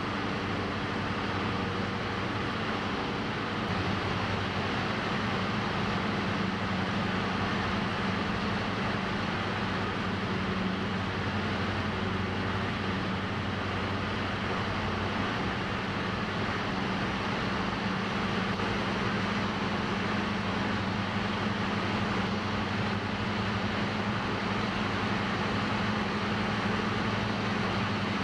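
Steady drone of a diesel-engined Cessna 172's engine and propeller, heard from inside the cockpit, with a deep hum under a broad rushing noise. The tone shifts slightly about three and a half seconds in.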